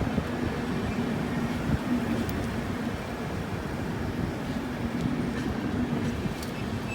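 Express passenger train running past on the track: a steady rumble of wheels on rail, with a low hum that fades and returns.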